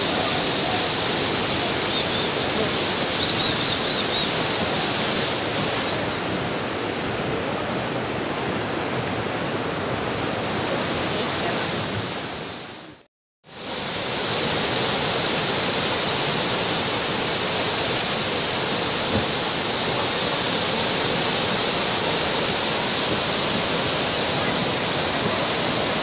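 Flood-swollen river rushing in spate, a steady roar of water. It fades out to a moment of silence about halfway, then comes straight back.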